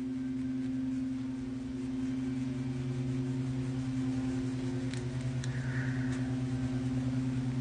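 A steady low hum of two pitches, from an appliance or electrical device, with a few faint clicks and a brief soft hiss about five and a half seconds in.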